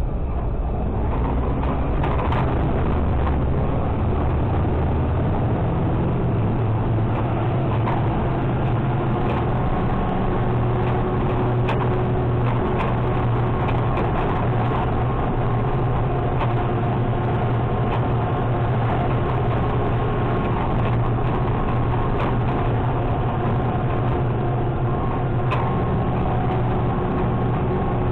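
Mack LR side-loader garbage truck driving, its engine and drivetrain running with a steady low drone and a few steady tones, with scattered clicks and rattles from the body and hopper.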